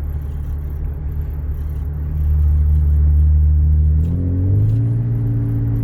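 Muffler-deleted Cadillac ATS exhaust droning inside the cabin while driving: a steady low hum that swells about two seconds in, then shifts up in pitch as the revs change near the end.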